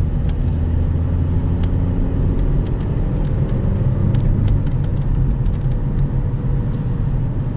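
Car driving along the road, heard from inside the cabin: a steady low rumble of engine and tyres.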